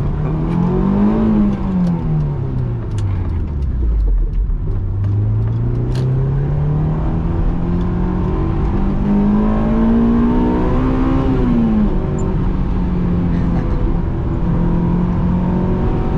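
Honda S2000's JDM F20C four-cylinder engine under way, heard from inside the cabin with the top up. The revs climb briefly and fall away, then climb steadily for about seven seconds before dropping sharply at a gearshift. After the shift it runs at a steady pitch.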